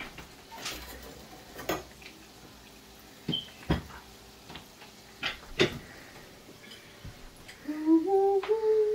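Metal slotted spoon clicking and scraping against a frying pan of hot oil as pastries are turned, in scattered separate knocks. Near the end a man's voice holds a few notes that step upward in pitch, louder than the clicks.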